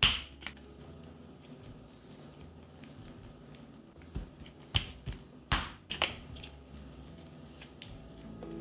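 Short sharp clicks and taps of a plastic dough scraper and hands handling dough balls on a silicone pastry mat: one click right at the start, then a cluster of taps about four to six seconds in.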